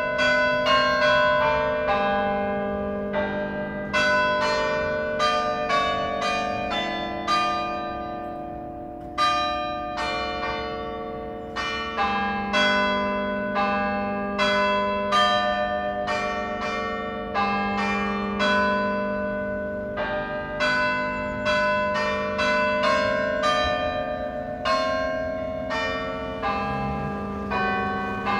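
Church tower bells ringing: a steady run of strikes at several different pitches, about one or two a second, each note ringing on and overlapping the next.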